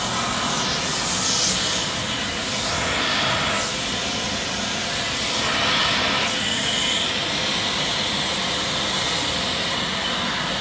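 Steady noise of a private jet's engines running, with a faint high whine about six seconds in.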